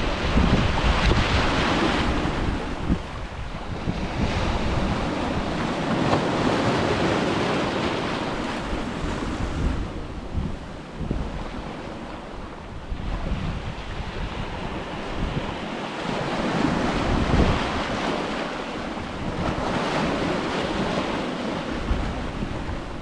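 Ocean waves washing onto a beach, the surf rising and easing in slow swells, with wind buffeting the microphone.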